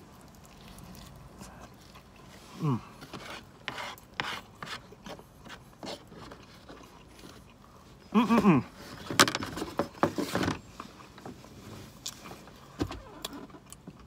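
Close-up eating sounds: chewing and small clicks of a plastic fork against a foam takeout box, with a brief hum of the voice about eight seconds in.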